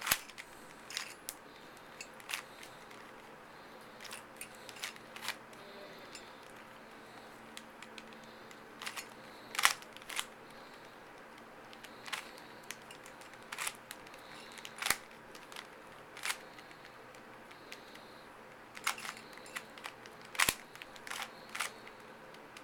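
Plastic Rubik's Cube layers being twisted by hand, giving irregular sharp clicks and clacks, singly or a few in quick succession. A faint steady hum lies underneath.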